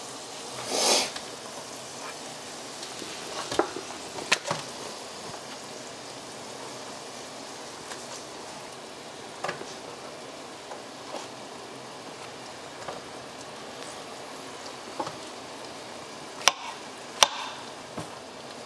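Diced salt pork and garlic sizzling steadily in a frying pan while sliced mushrooms go in, with a few sharp knocks and taps against the pan along the way.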